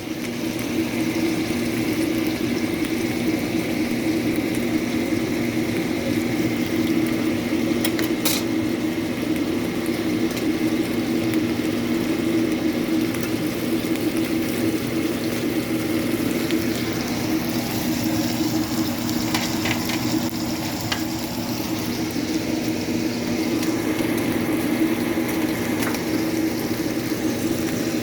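Beef sizzling steadily in hot cooking oil, with a steady low hum underneath and a few sharp clicks about eight seconds in.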